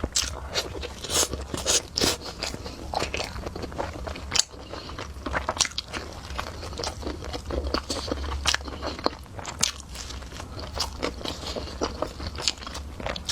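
Person biting and chewing crunchy food, with many sharp, irregular crunches in quick succession, over a steady low hum.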